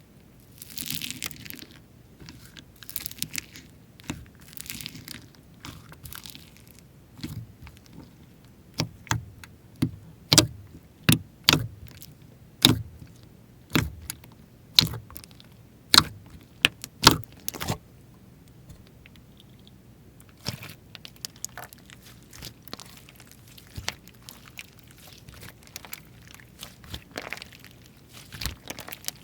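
Slime being squished and pressed by hand: soft squishing at first, then a run of sharp popping clicks about once a second, thinning out later.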